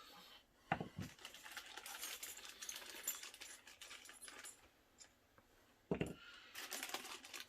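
Small sewing-machine accessories being handled and set down: a run of light clicks and rattling, with soft thumps about a second in and again near the end.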